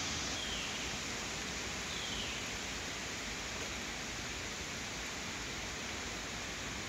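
Steady outdoor background hiss, with two faint, short, high tones falling in pitch, about half a second and two seconds in.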